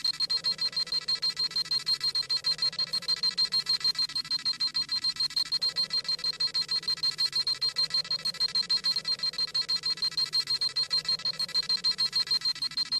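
Dragon Ball Z scouter sound effect scanning a power level: rapid electronic beeping, about six pulses a second, on a high steady tone.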